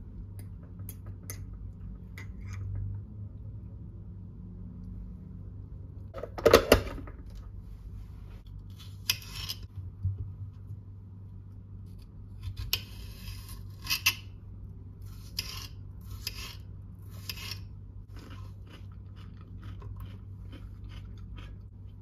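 Small household handling sounds over a low steady hum: a sharp knock with a rustle about six and a half seconds in, then a run of short scraping strokes and light ticks.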